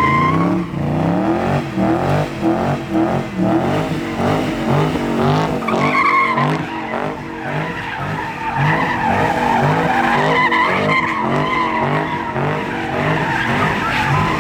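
A car doing donuts: the engine revs rise and fall over and over while the tires squeal continuously.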